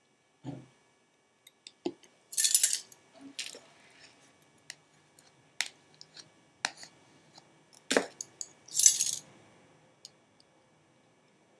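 A teaspoon clicking and clinking against small containers while blueberry jam is spooned out. Two short harsh scrapes, about two and a half seconds in and again near nine seconds, are the loudest sounds.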